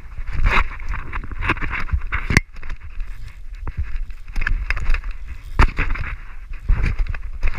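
Wind buffeting a body-worn action camera during a bungee fall and rebound, an irregular gusting rush with heavy low rumble. A couple of sharp knocks cut through it, about two and a half and five and a half seconds in.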